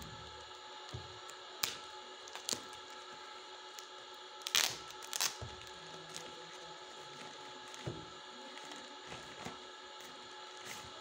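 Clear plastic wrapper crinkling and crackling as it is pulled off a paperback book: irregular crackles, loudest in a short cluster about halfway through.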